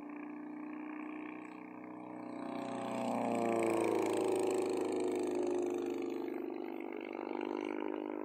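Homebuilt Hummel Ultracruiser's engine and propeller droning through a low fly-by: the sound grows louder, peaks about four seconds in with its pitch dropping as the plane passes, then eases off.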